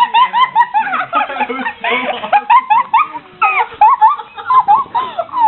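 A person making silly, high-pitched squeaky vocal noises: a rapid run of short yelps that swoop up and down in pitch, several a second, with giggling mixed in.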